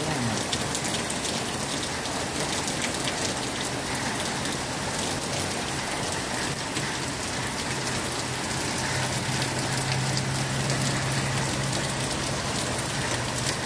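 Heavy rain falling steadily on a street, trees and nearby surfaces: a dense, even hiss full of small drop taps. A low hum runs underneath, strongest a little past the middle.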